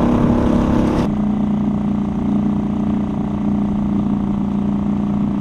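Small boat motor pushing a canoe, running steadily at one pitch. Its sound changes abruptly about a second in, then runs on at the same pitch.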